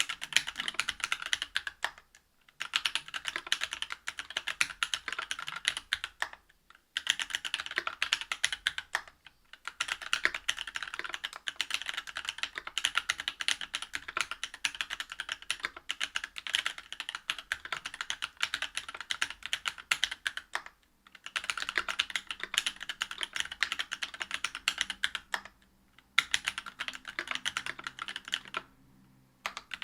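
Typing on a Whale 75 mechanical keyboard with stock Cannonkeys Lilac Linear 62g switches, a brass plate and GMK keycaps. Dense runs of rapid keystrokes are broken by several brief pauses.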